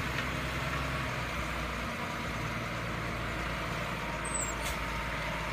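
Stewart & Stevenson M1088 MTV tractor truck's diesel engine running steadily at low speed as the truck moves slowly, a low even drone. A brief high squeak and tick come about four and a half seconds in.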